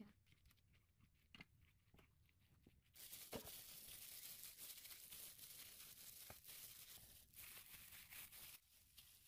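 Near silence at first, then from about three seconds in a faint crinkling, rustling hiss with a few soft clicks: gloved hands tossing salted napa cabbage through chili paste in a metal bowl.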